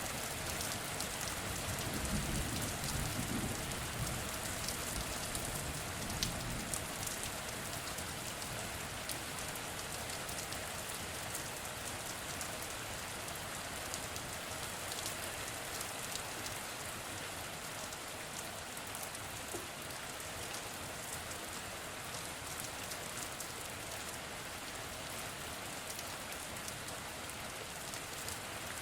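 Heavy rain falling steadily, a dense even hiss with fine drop ticks. A low rumble of thunder dies away over the first few seconds.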